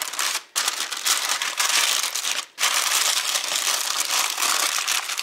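Baking parchment crinkling and rustling as hands handle and fold it, breaking off briefly twice.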